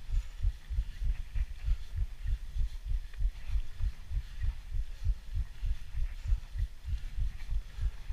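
Mountain bike rolling fast down a dirt forest trail, heard through the riding camera as a continuous low, uneven thumping and rumble from trail bumps and wind on the microphone, a few thumps a second, with faint light ticks above it.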